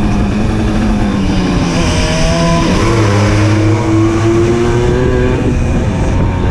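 Simson S51 moped's small single-cylinder two-stroke engine running under way, heard from the rider's seat. The engine note sags a little, changes about two and a half seconds in, then rises steadily as the bike accelerates. Partway through, the bike passes through a short tunnel.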